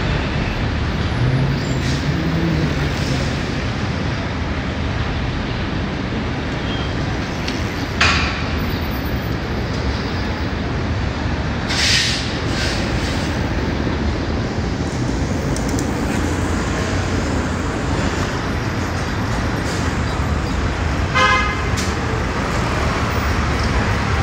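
Steady city street traffic noise from passing vehicles. There are a couple of short bursts of hiss about a third and halfway through, and a brief horn toot near the end.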